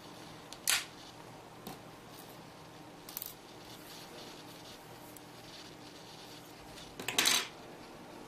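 A lighter being struck to singe the edges of a satin ribbon leaf: a sharp click about a second in, a few small clicks around three seconds, and a longer scratchy strike near the end.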